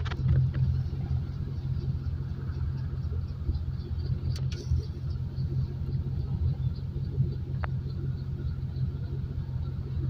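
Military helicopter hovering low, its rotors making a steady, low, rumbling drone.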